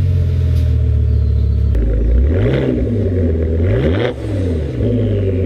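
Audi S6 (C6) V10 engine idling just after start-up, blipped twice: the pitch rises and falls about two seconds in and again about four seconds in.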